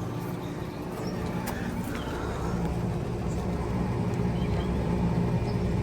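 Rheem Classic air conditioner condensing unit running: a steady hum from its Copeland scroll compressor and condenser fan, growing slightly louder.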